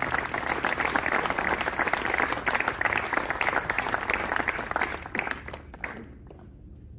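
Audience applauding, a dense patter of many hands clapping that thins out about five seconds in and stops near six seconds with a few last claps.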